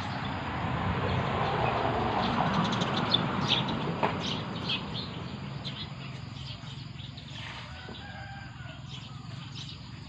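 Small birds chirping in short repeated calls over a steady low hum, with a rushing noise that swells in the first half and then fades.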